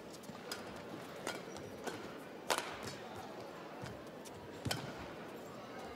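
Badminton rackets striking a shuttlecock during a rally: a string of sharp, crisp hits over the murmur of an indoor arena, the loudest about two and a half and four and a half seconds in.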